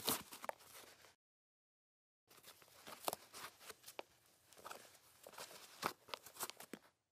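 Shoelaces scraping and flicking against a canvas high-top sneaker as they are pulled and tied: soft, irregular clicks and rustles that stop dead for about a second early on, then carry on.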